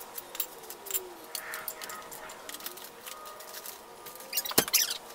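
Light clicks and rattles from a child-chariot running stroller's metal frame and fittings as it is handled and its pull arms are fitted, with a louder cluster of clicks near the end.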